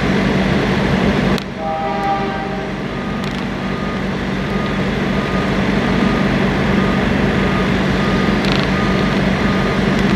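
Railway level-crossing warning bell ringing at an even pace over a steady low engine rumble, with a short multi-note horn sounding about two seconds in.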